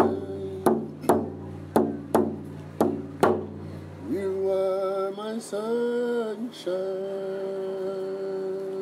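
A frame hand drum is struck with a beater about six times in a paired, heartbeat-like rhythm and stops a little after three seconds in. A man's voice then sings long held notes without drumming.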